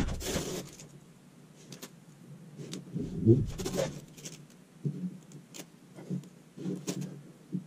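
Handling noises: scattered light clicks and rustles, with a short hiss at the start and a louder rustle a little over three seconds in.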